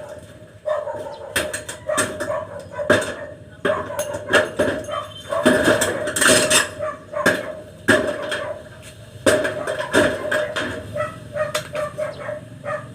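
A dog barking repeatedly and irregularly, amid short knocks.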